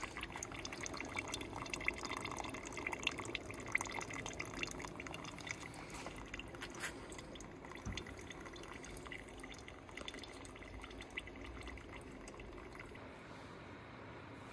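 Melted wax and condensed steam water dripping from the drain hole of a steam wax melter's bucket into a pot, in a quick irregular patter that thins out near the end.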